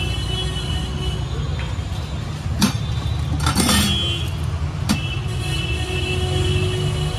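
Steady low rumble of street traffic, with a few sharp knocks of utensils at a street food stall, about two and a half seconds in and again about five seconds in, and a short clatter between them.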